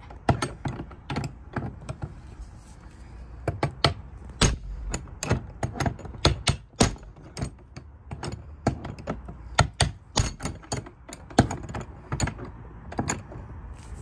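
Hammer blows on a crowbar hooked through a laminated steel padlock's shackle, metal striking metal in an uneven run of a couple of knocks a second, some ringing briefly. The padlock holds without breaking.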